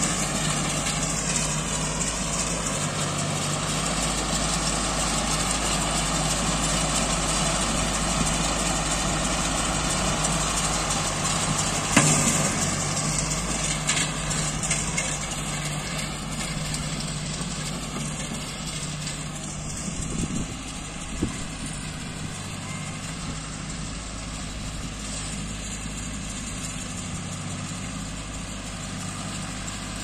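Tractor engine running steadily as it pulls a working Bharat 1050 extra-wide baler, fading slowly as it moves away. A single sharp knock comes about twelve seconds in.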